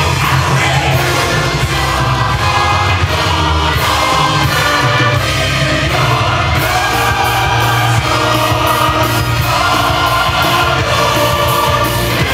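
Halloween parade music with a sung chorus, playing loud and steady with a strong bass line.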